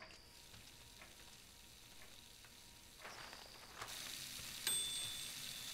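Faint room tone with a few light clicks, then, from about three seconds in, food sizzling in a frying pan, its hiss growing louder, with a thin high tone over it near the end.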